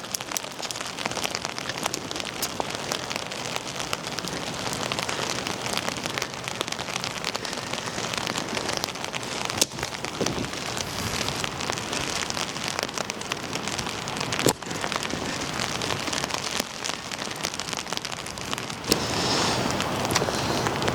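Rain pattering steadily, with many close drop hits and a sharper single knock about two-thirds of the way through.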